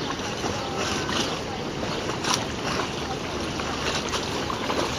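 Steady lakeside wind and choppy water, with a few light clicks.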